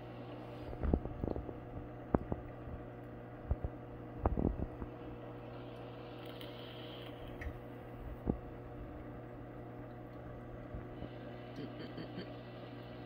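Steady low hum of running aquarium equipment, with a few short clicks and knocks in the first half.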